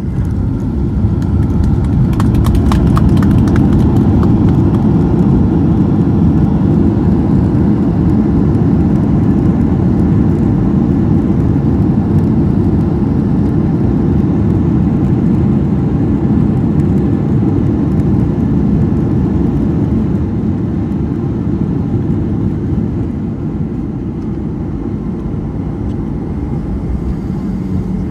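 Airliner cabin noise during the landing rollout: a loud, steady low rumble of the engines and the wheels running on the runway, with a short patter of clicks and rattles about two to four seconds in. The rumble eases slightly near the end as the aircraft slows.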